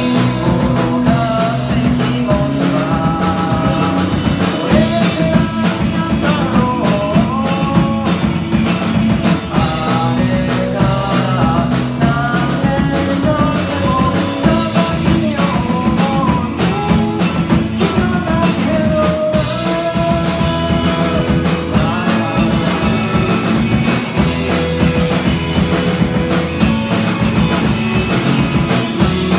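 A live rock band of two electric guitars, electric bass and drum kit playing a song, with a gliding melody line over a steady drum beat.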